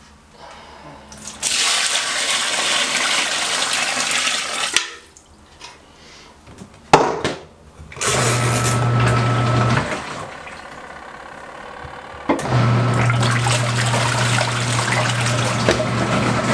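Water rushing into the tub of a DELLA portable washing machine for a rinse, then a sharp click and the wash motor running with a steady hum under churning water. The motor stops for a couple of seconds and starts again about 12 seconds in.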